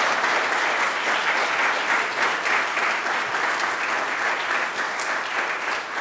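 A congregation applauding steadily, many hands clapping at once.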